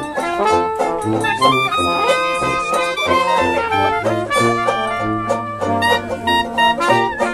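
A small band playing a lively jazz tune, with trombone, clarinet and a large low brass horn among the instruments.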